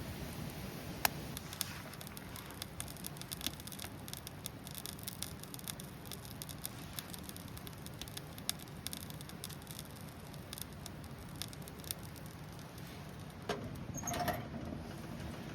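Wood campfire crackling, with many small irregular pops and snaps over a low steady rumble. Near the end comes a brief, louder knock-and-rattle with a faint ring.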